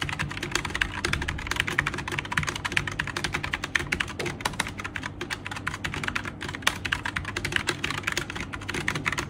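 Mikit CL80 Marmalade low-profile mechanical keyboard being typed on quickly, a dense run of clicky keystrokes.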